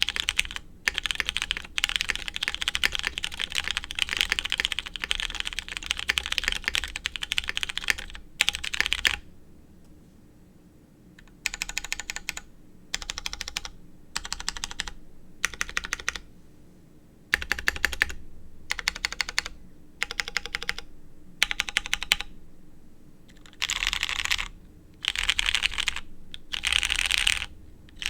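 Typing on a custom mechanical keyboard with lubed MX Brown tactile switches, a polycarbonate plate and DCS keycaps. The first nine seconds are fast, continuous typing. After a short pause, the rest comes as quick bursts of keystrokes with brief gaps between them.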